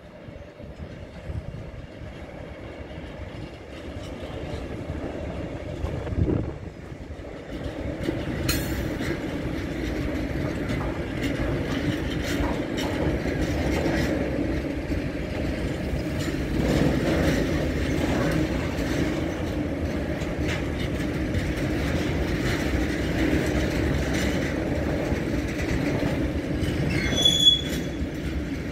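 Freight train of tank wagons rolling past on the rails. The rumble of the wheels grows louder over the first eight seconds or so, then holds steady. A brief high squeal comes near the end.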